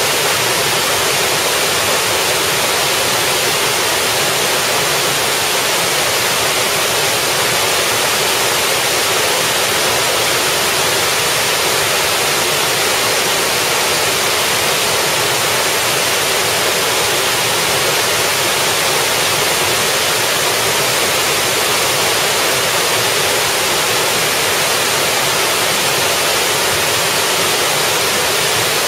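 Small multi-tiered waterfall pouring and splashing onto rocks: a steady rushing hiss, strongest in the upper range with little deep rumble.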